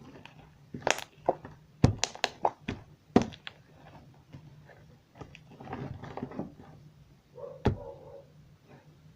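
Slime being squeezed and pressed by hand, giving a quick cluster of sharp wet pops and clicks over the first few seconds, a softer squelching about six seconds in, and one more pop near the end.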